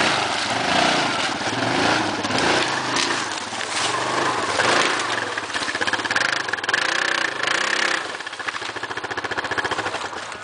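ATV engine running hard as the four-wheeler churns through deep mud, the revs rising and falling repeatedly, then easing to a steadier, quieter running near the end.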